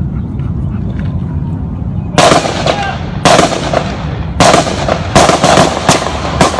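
Gunshots: about seven sharp shots starting about two seconds in, the first three about a second apart and the rest coming faster, each with a short echo.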